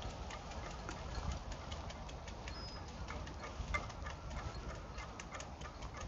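Footsteps on a muddy path, with handling noise from the hand-held camera: faint, irregular clicks over a low rumble.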